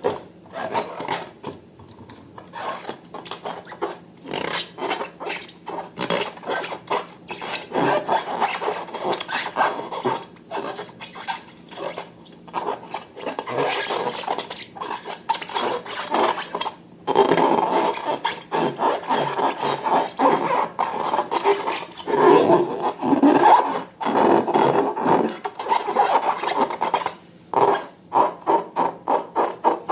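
Slime being kneaded and stretched by hand, a dense run of sticky clicks, crackles and small pops.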